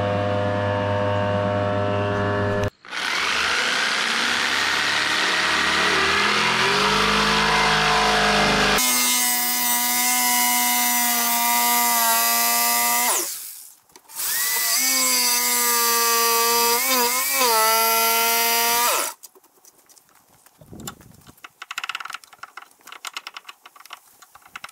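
DeWalt thickness planer running and then planing a board for the first several seconds. After that, a corded jigsaw cuts through a thick board in two runs, its pitch wavering in the second. Near the end come quieter scrapes and taps of a chisel trimming the board's edge.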